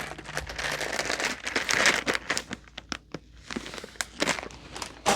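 Resealable plastic craft-supply bag crinkling as it is handled, dense for about two seconds, then giving way to a scatter of small clicks and ticks.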